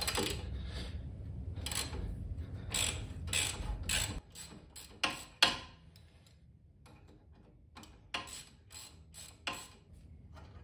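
Socket ratchet clicking in short, irregular strokes as the brake-hose bracket bolt is backed out, the loudest clicks about five seconds in. A low rumble sits under the first four seconds.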